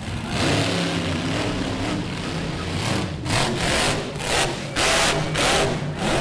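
Monster truck engine running at full throttle as the truck accelerates, then about five loud, sharp throttle surges in quick succession as it launches over the crushed cars.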